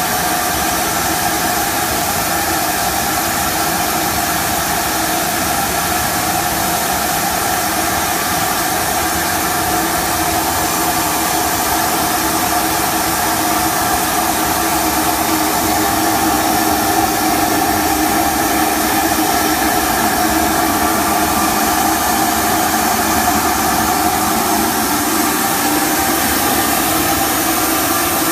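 Industrial machinery running steadily: a loud, even hiss with a steady multi-pitched whine on top, unbroken throughout.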